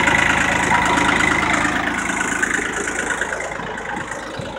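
Ford 1710 tractor's diesel engine idling steadily, a little fainter near the end.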